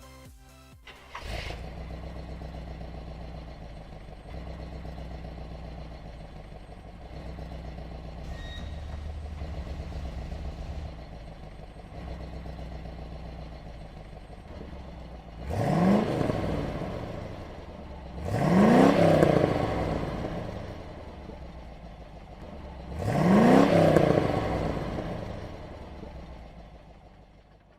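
Corvette Stingray V8 with a new exhaust, starting about a second in and idling with a deep steady burble. It is then revved three times, each rev climbing quickly and falling back to idle.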